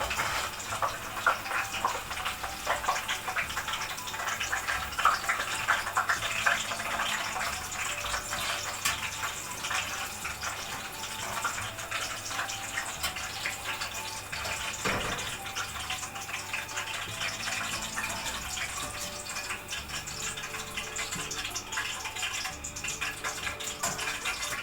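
Potato chips in hot frying oil sizzling steadily, a dense stream of small crackles and pops.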